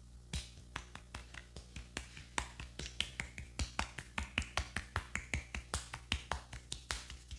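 Rapid, even hand strikes of a barber's head massage: sharp claps or taps about five a second.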